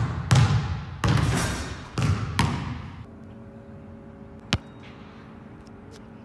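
Basketball bouncing on a gym's hardwood floor: four loud, echoing bounces at an uneven pace over the first three seconds. After that the sound drops to a quiet background, with one sharp click about four and a half seconds in.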